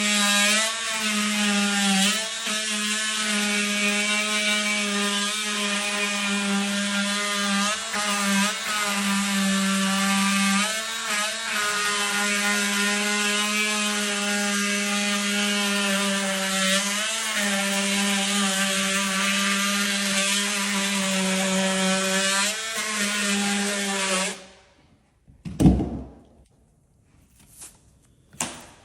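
DeWalt 20V Max XR DCS356B brushless oscillating multi-tool cutting sheetrock: a steady high buzz whose pitch dips briefly now and then as the blade bites. It stops near the end, followed by a couple of short knocks.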